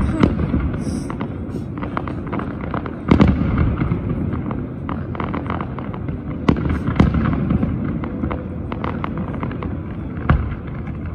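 Fireworks display: a continuous run of bangs and crackles, with louder booms about three seconds in, twice around six and a half to seven seconds, and again near the end.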